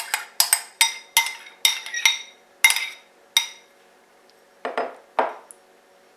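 A metal spoon clinking and scraping against a glass bowl about a dozen times, each clink ringing briefly, as cherry pie filling is scooped out. About a second after the clinks stop come two duller, softer strokes.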